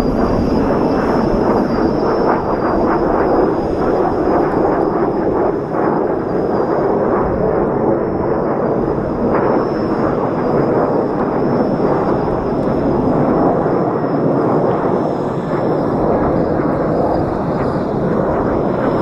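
Steady jet roar of Kawasaki T-4 jet trainers flying overhead, a continuous rushing noise that holds level without a break.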